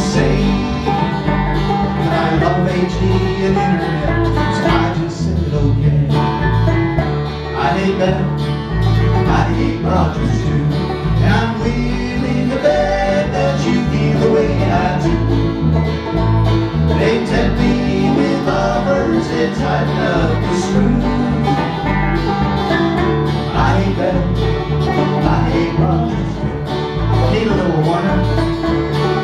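Small band playing a country-bluegrass song live: banjo, acoustic and electric guitars over electric bass, with a steady strummed beat.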